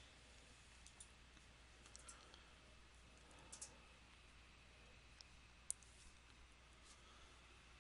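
Near silence: faint room tone with a few scattered, short clicks, the sharpest a little after halfway.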